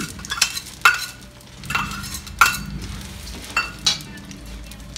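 A flat steel spatula stirring and scraping a thick roasted-flour mixture in a steel kadai, with several sharp metal clinks against the pan.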